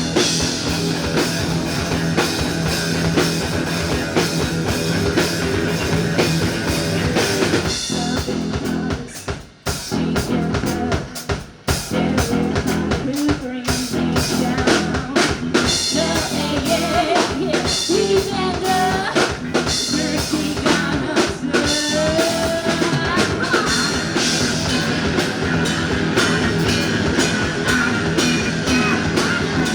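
Indie rock band playing live on drum kit and electric guitar. The band stops sharply twice, briefly, about a third of the way in, then comes back in full.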